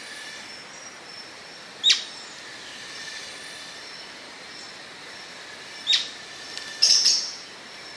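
Atlantic royal flycatcher (Onychorhynchus swainsoni) giving sharp, brief calls, about two seconds in, near six seconds in, and a louder, fuller one about a second later. Behind them runs a steady background hiss with faint, constant high tones.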